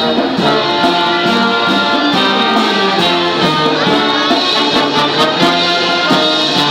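Marching band playing live: brass instruments carry a tune over a steady drum beat.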